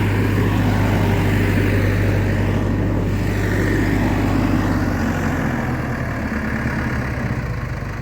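Case 480 backhoe's engine running steadily; about five seconds in its note drops lower and turns rougher as it slows.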